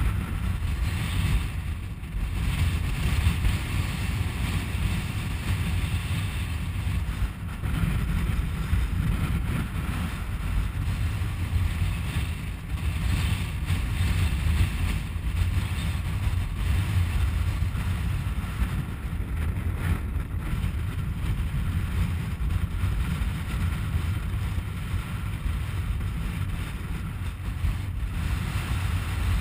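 Wind buffeting the microphone: a continuous low rumble that surges and eases in gusts.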